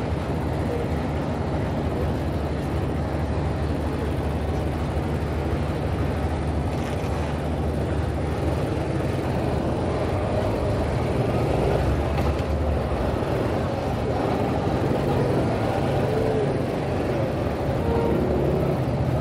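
Busy city street ambience: a steady rumble of traffic with indistinct voices of passers-by mixed in.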